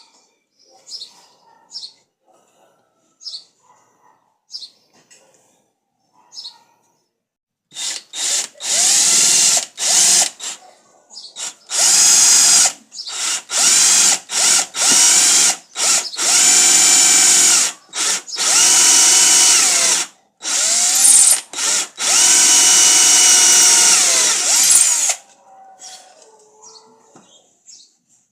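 Electric drill run in repeated bursts, about a dozen starts and stops. Each burst whines up to speed and holds for one to several seconds, beginning about eight seconds in and ending a few seconds before the close.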